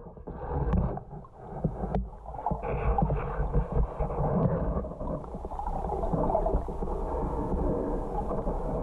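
Muffled underwater rumbling and gurgling, picked up by a camera held under the water, with a few small clicks.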